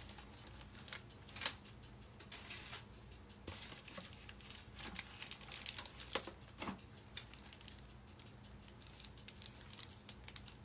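Plastic bags holding model-kit parts trees crinkling and rustling as they are handled, with a few sharp light clicks. The crinkling is busiest in the first seven seconds and sparser after.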